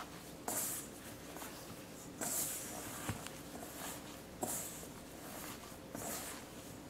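Plastic-gloved hand kneading taro and tapioca-starch dough in a stainless steel bowl: four soft, short rubbing strokes, one every one and a half to two seconds.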